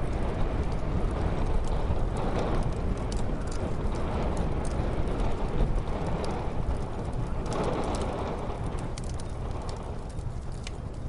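Muffled snowstorm wind, a deep steady rumble that swells in gusts every couple of seconds, with the scattered snaps and pops of a crackling wood fire over it.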